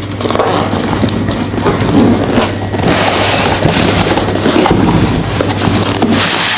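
Cardboard box and polystyrene foam packing scraping and rubbing with irregular knocks and thuds as a foam-packed monitor is slid out of its box. A steady low hum runs underneath.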